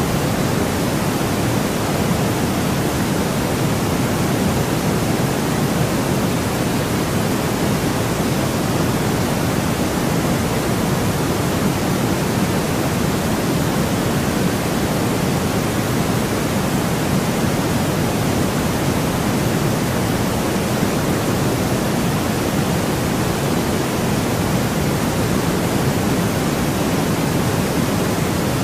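Steady, unchanging white noise: an even hiss with no pattern, weighted toward the lower and middle range rather than the highs.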